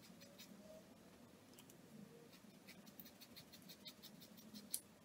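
Scissors snipping through synthetic wig hair: a quick run of faint, short, crisp snips, with one sharper snip near the end.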